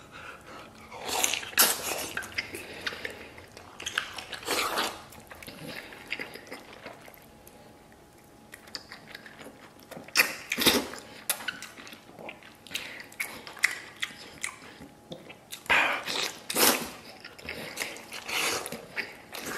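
Close-up sounds of a person biting into, sucking at and chewing spicy braised sheep-head meat off the bone. The sounds come in irregular bursts, with a quieter stretch of a few seconds in the middle.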